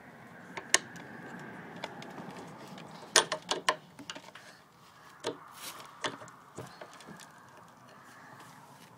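Scattered sharp clicks and knocks, with a quick run of them about three seconds in, over a faint steady hiss.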